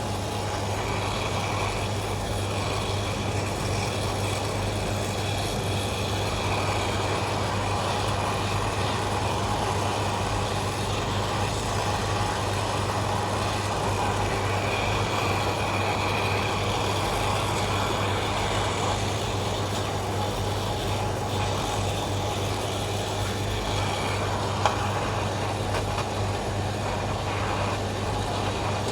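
Brazing torch flame burning steadily as copper refrigerant pipe joints on a new compressor are heated and brazed, a continuous hiss over a steady low hum. A single faint click comes near the end.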